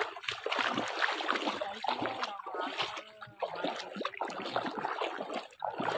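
Bare feet wading through ankle-deep water, splashing with each step, ending as the wader reaches the bank partway through.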